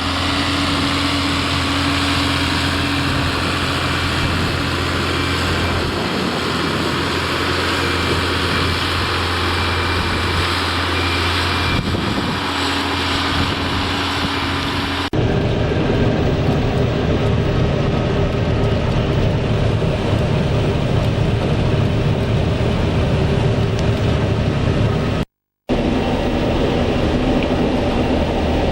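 Tractor engine running steadily under load. About halfway through, the sound cuts abruptly to a different heavy engine running, with a brief break to silence near the end.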